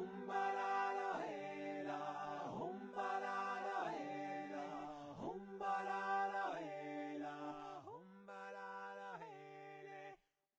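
Background a cappella music made only with voices: layered sung notes held as chords, with a gliding drop in pitch about every 1.3 seconds. It stops suddenly near the end.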